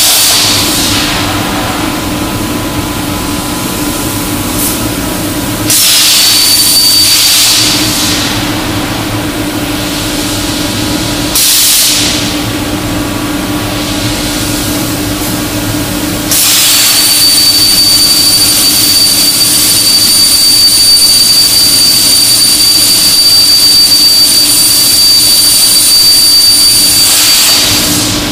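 CNC plasma cutter with a Hypertherm torch cutting steel plate: the arc hisses with a steady high-pitched whine in separate cuts. One cut ends about a second in, another runs for about two seconds around six seconds in, and a brief one comes near the middle. A long cut starts about sixteen seconds in and runs until near the end. A steady lower hum carries on between cuts.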